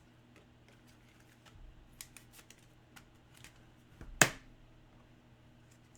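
Trading cards being handled and sorted by hand: faint light clicks and slides, with one sharp click about four seconds in.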